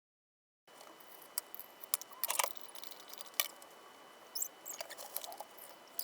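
Light clicks and clattering of small hard objects being handled, loudest about two seconds in, with a few brief high squeaks near the middle, over a faint steady high whine. The sound begins abruptly under a second in.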